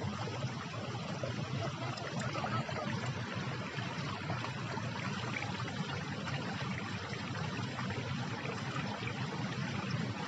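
Steady running water trickling in a garden pond.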